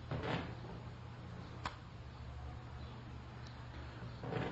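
Lecture-room tone with a steady low hum, a soft rush of noise at the start and one sharp click about a second and a half in.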